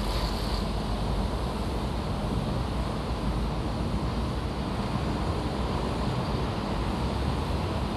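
Construction-site ambience: a steady low rumble of machinery and traffic, with no distinct knocks or bangs.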